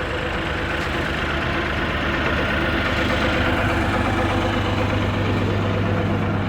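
An engine idling steadily, its low hum growing stronger about three and a half seconds in.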